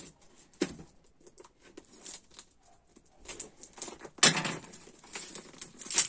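Hands working at a taped cardboard box that is hard to open: scattered scratching, clicks and scraping of cardboard and packing tape, with a louder rasp of cardboard or tape about four seconds in.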